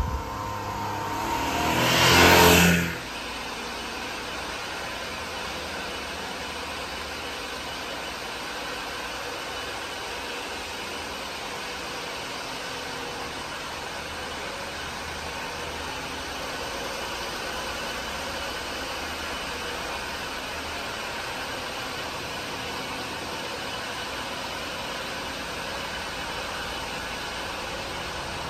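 1999 Honda Acty mini truck's small three-cylinder engine revving up as the truck drives, growing louder to a peak and cutting off abruptly about three seconds in. It is followed by a steady engine idle at an even level.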